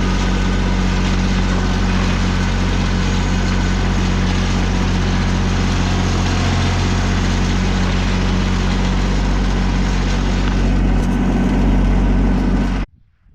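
An engine running steadily at an even speed, cut off abruptly near the end.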